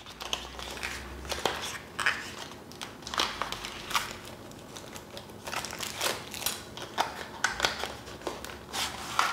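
Small cardboard box being opened and handled by hand: paperboard flaps crinkling and scraping, with irregular light clicks and rustles.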